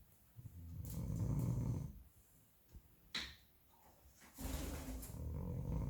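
Snoring: two long, low snores a few seconds apart, with one short sharp high-pitched sound between them.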